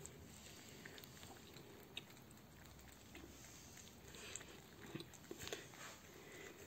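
Several cats faintly lapping and chewing egg from a plate, heard as soft, scattered little clicks and licks, a few more of them in the second half.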